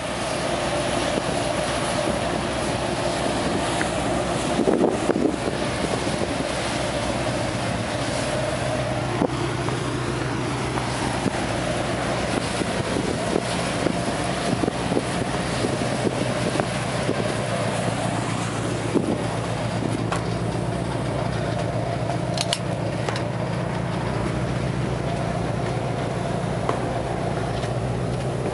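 Steady drone of a cargo ship's machinery: a constant low hum with a higher tone above it over a broad rushing noise. A few light knocks come through now and then.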